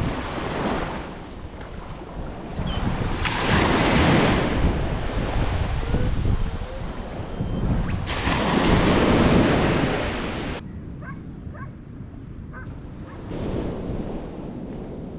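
Ocean surf rushing and breaking, with wind buffeting the microphone. The noise swells loudest around four and nine seconds in and changes abruptly a few times, growing quieter after about ten seconds.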